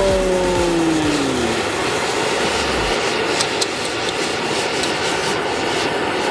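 Gas torch flame running with a steady, loud hiss. A falling pitched tone fades out in the first second or so, and two sharp crackles come about three and a half seconds in.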